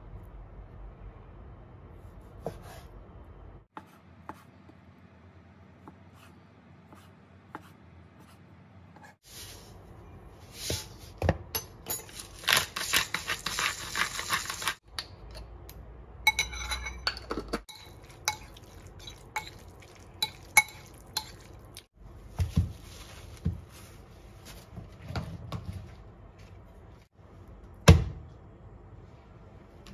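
Kitchen food-prep sounds: scattered knocks and clinks of a knife, bowls and dishes on a wooden board and counter. About halfway through comes a couple of seconds of hissing rustle, and near the end one sharp knock.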